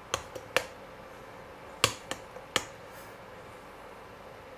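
Metal fork clinking against the side of a stainless steel pot while separating egg noodles in boiling water: a few sharp clinks in the first second and a few more around two seconds in.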